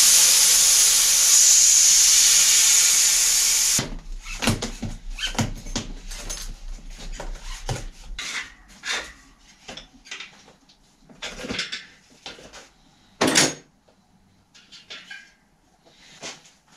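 Air hissing hard out of a bicycle tyre for about four seconds, then cutting off suddenly. After it come irregular clicks, knocks and rubbing as the tyre is worked off the rim with a tyre lever, so that the bulging tyre can be replaced.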